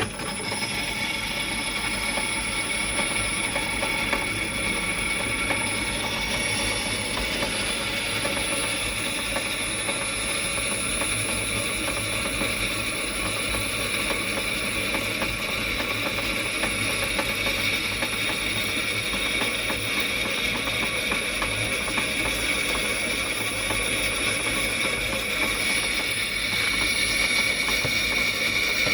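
1930s Delta DP220 drill press running on its variable-speed drive, the motor and belt drive giving a steady whine with several pitches. It gets a little louder near the end.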